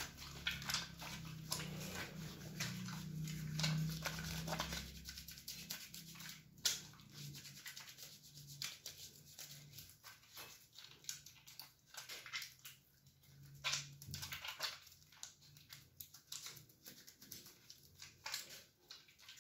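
Soapy, lathered hands rubbing and squelching together in an uneven run of short wet smacks and rustles. A low hum sits under the first few seconds.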